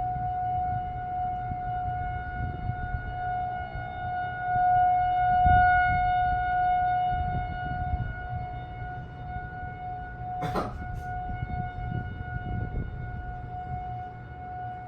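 Federal Signal 2001-230 rotating outdoor warning siren sounding a steady, unwavering alert tone, not the rising-and-falling attack wail. It grows louder for a couple of seconds about five seconds in. A brief sharp sound cuts in about ten and a half seconds in.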